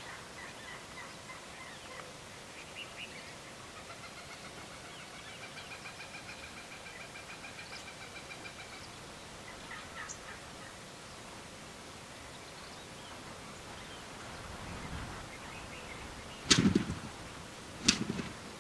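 Gould's wild turkeys calling: a long run of faint, evenly spaced calls near the middle, then two loud gobbles near the end from strutting toms.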